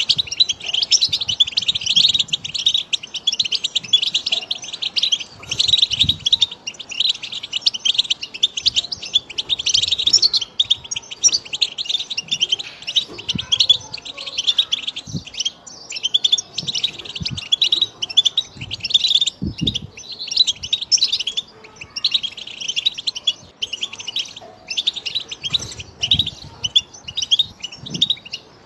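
European goldfinch song: a continuous, dense stream of rapid twittering and chirping notes with no pause.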